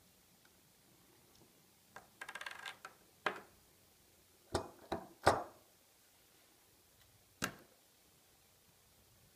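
Small metal parts of an Angelus can seamer roll and pin assembly clinking and tapping on a hard tabletop as the assembly is taken apart. A short rattle comes about two seconds in, then single sharp knocks, the loudest about five seconds in and a last one at about seven and a half seconds.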